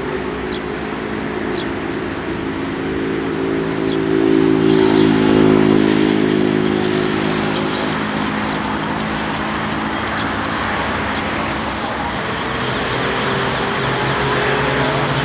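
A diesel box truck running as it drives past close by, its engine note rising near the end, over the rumble of a jet airliner coming in to land.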